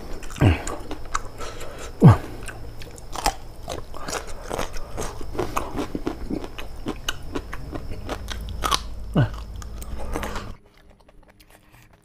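Close-miked chewing and biting of boiled papaya stem in spicy pecel sauce: a dense run of small crunches and mouth clicks, with a few louder mouth sounds, the loudest about two seconds in. The chewing stops about ten and a half seconds in.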